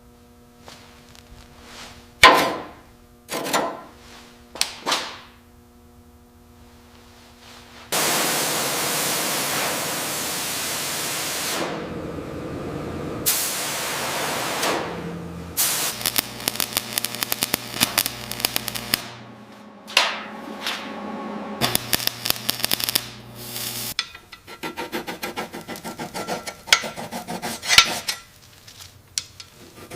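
Metalworking tool sounds. A few sharp knocks with a ringing tone come first, then a long hiss lasting several seconds, then stretches of rapid rasping chatter, partly over a steady motor hum.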